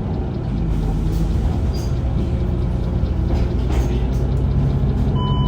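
Mercedes-Benz Citaro CNG city bus running under way, heard aboard as a steady low engine drone. Just over five seconds in, a short electronic beep sounds once.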